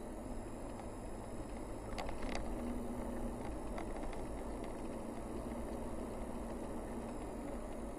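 A Toyota car driving at steady speed, heard from inside the cabin: a steady mix of engine and tyre noise, with a couple of light knocks about two seconds in.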